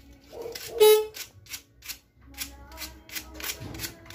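Copper wire being wound by hand onto a TMX155 motorcycle stator's coil, a scratchy stroke about three times a second as each turn is pulled round. A short, loud, high-pitched tone sounds about a second in.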